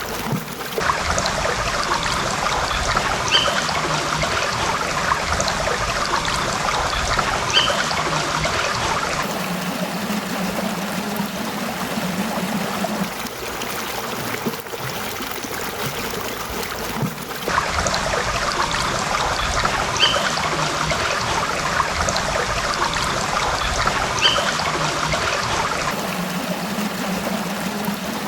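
Stream water trickling and babbling over rocks. The sound switches abruptly about every eight seconds between a brighter, splashier stretch and a lower, fuller-sounding one.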